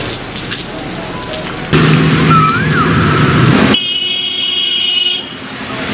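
Rain and water hissing in a flooded street, then a sudden change about two seconds in to a motor vehicle engine running over the water, and a high steady tone in the last two seconds.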